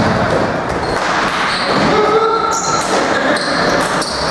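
Box lacrosse play on an arena floor: the clatter of sticks and the hard rubber ball knocking and bouncing, with brief sneaker squeaks, echoing in a large hall.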